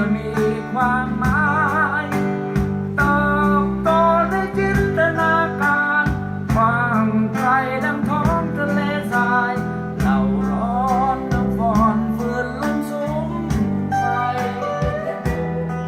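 Folk-style song with strummed acoustic guitar, steady bass notes and a singer's voice with vibrato, played back through a 3-inch full-range speaker under test.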